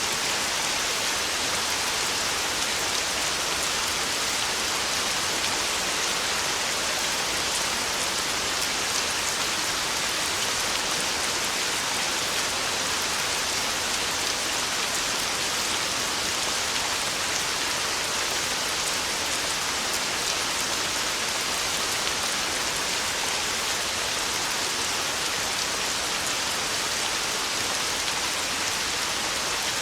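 Torrential rain on a tin roof, a dense, even hiss that holds steady throughout with no thunder.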